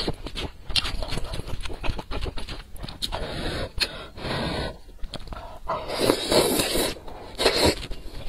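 Close-miked eating of glass noodles in spicy broth: wet chewing and mouth clicks throughout, with longer noisy slurps of noodles, the longest about six seconds in and another shortly after.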